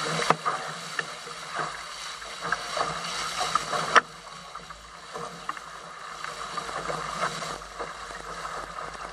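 Water rushing and splashing against the hulls of a Weta trimaran sailing fast through chop, with many short slaps of spray. One sharp loud slap about four seconds in, after which it is quieter.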